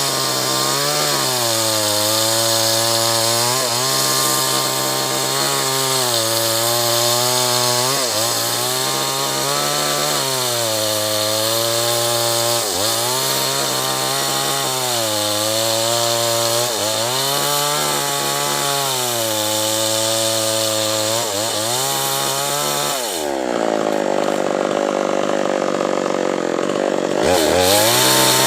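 Two-stroke chainsaw at high revs cutting acacia wood, its engine note sagging under load and climbing back again about every two seconds. Near the end the pitch falls and the sound turns dull for a few seconds, then the full sound comes back.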